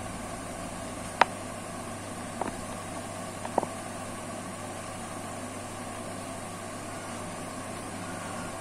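Steady background hum and hiss, with a few short sharp clicks about a second in, around two and a half seconds in, and a double click near three and a half seconds, from the plastic glue tube knocking against the phone's frame as adhesive is laid along its border.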